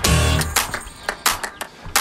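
Background music with a steady beat: plucked guitar over heavy bass notes, the bass dropping out in the middle.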